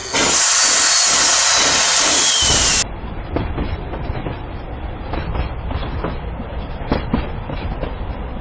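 A loud hiss of steam for nearly three seconds, with a faint falling whistle in it. It cuts off suddenly, and then a freight train runs along with a low rumble and rattling, clicking wheels.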